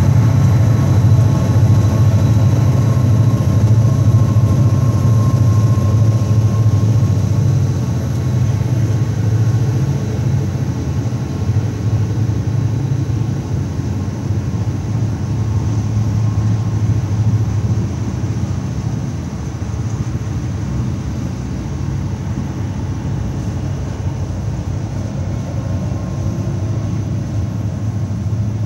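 A diesel train rumbling steadily, with faint steady high tones above the rumble. The rumble eases a little about eight seconds in.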